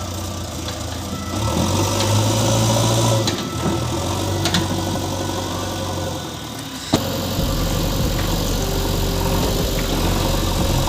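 An engine running steadily with a low hum; about seven seconds in there is a sharp click and the engine sound shifts abruptly to a lower, steady drone.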